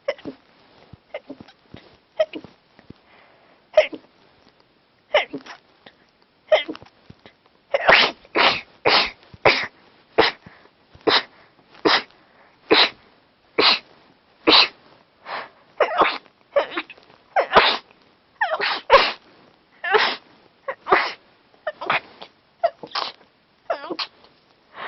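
Stifled sneezes from a person with a cold: a few scattered ones, then from about eight seconds in a rapid fit of around thirty, roughly two a second. Holding them back sets off more sneezes.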